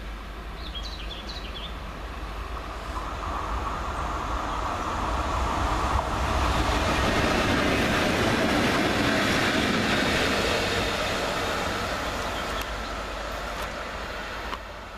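Three SNCF BB 60000 diesel locomotives running together pass close by. Their engine drone and wheel-on-rail noise grow louder, peak midway as they go past, then fade as they move away. A few bird chirps sound near the start.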